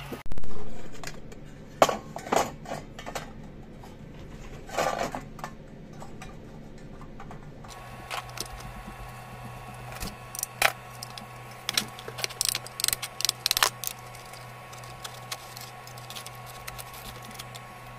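Small metal model tank parts clicking and clinking as they are handled and fitted together on a workbench, with clusters of sharp taps thickest about two-thirds of the way through. A loud short burst comes just after the start, and a steady low hum runs underneath.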